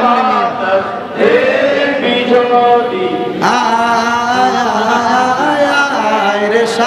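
Men's voices chanting a devotional Bengali song in praise of the Prophet Muhammad, a drawn-out melodic line that fills out about three and a half seconds in.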